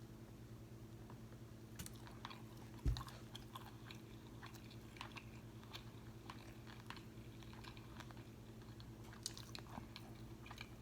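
Close-miked chewing and biting of crispy fried food, with scattered short crunchy clicks and wet mouth sounds over a steady low hum. One dull thump about three seconds in is the loudest sound.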